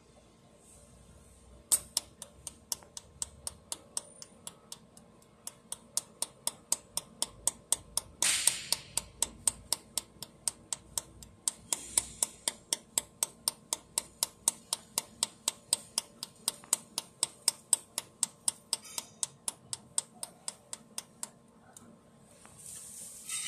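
Handheld pulse welding torch spot-welding a seam in thin metal sheet: a steady train of sharp clicks, about three a second, one per weld pulse, with a brief hiss about eight seconds in. The clicks stop about two seconds before the end.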